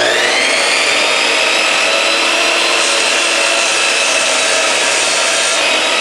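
Electric miter saw running at full speed, its motor whine climbing to a steady pitch in the first second. From about three seconds in until shortly before the end, the blade cuts through a thin strip of wood.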